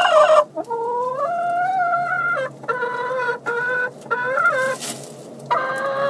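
Chickens calling: a string of about five long, drawn-out, pitched calls with short breaks between them, the last one starting near the end.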